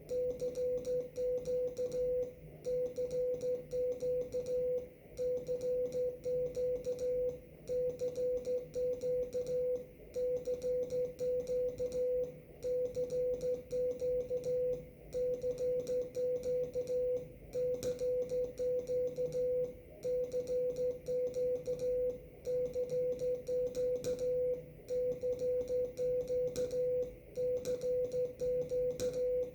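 Amateur radio Morse code (CW) as a single mid-pitched tone keyed rapidly in dots and dashes, with short pauses between words every couple of seconds. Faint ticking keeps time with the keying.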